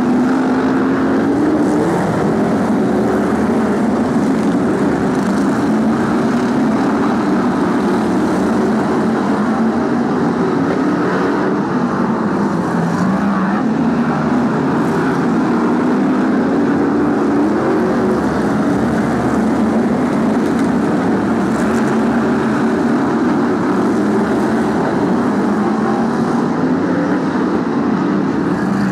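A pack of BriSCA F1 stock cars' V8 engines running around the oval, a steady loud din with engine notes that rise and fall as the cars accelerate and lift off.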